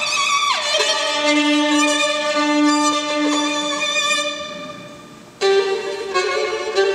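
Violin playing classical music: held notes with a slide up and back down near the start, fading away softly, then a loud, fast passage breaking in about five and a half seconds in.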